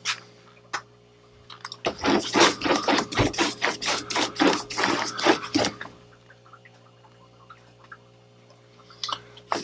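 A wide paintbrush, wet with water and paint, worked across the paper in a quick run of short strokes lasting about four seconds.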